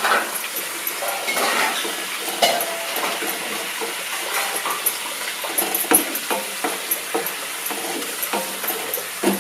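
A spoon stirring jaggery and a little water in a frying pan as it heats and melts into syrup. Frequent clinks and scrapes of the spoon against the pan ring out over a steady hiss.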